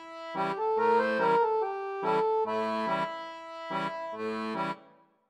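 Background music: an accordion-style instrumental tune played in short repeated chords, roughly two a second, dying away near the end.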